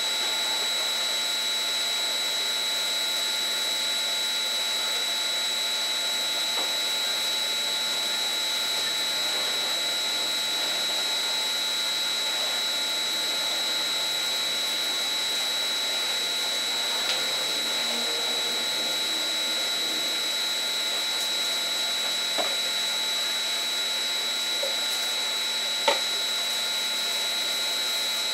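A small electric motor running steadily with a high-pitched whine, a few light clicks and one sharp knock near the end.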